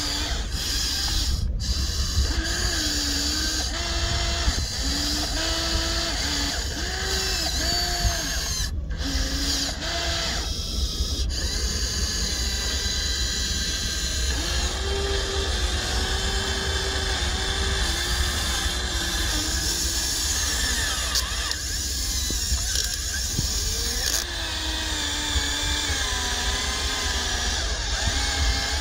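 Small electric motors of a Huina 1593 RC excavator whining as its boom, arm and bucket move, the pitch stepping up and down again and again as the controls are worked.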